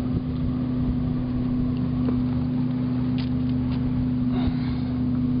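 An engine runs steadily at a constant pitch, with an even hum throughout.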